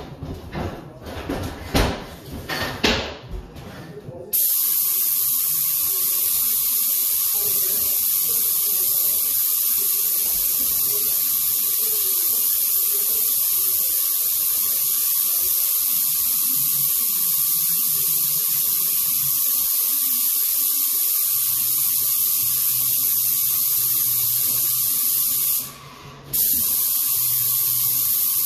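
Airless paint spray gun hissing steadily as it sprays a mist coat onto fresh plaster, starting about four seconds in. The hiss stops for about half a second near the end, then starts again.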